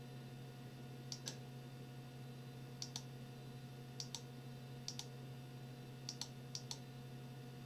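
Quick double clicks from working a computer, six pairs spaced about a second apart, over a steady low hum.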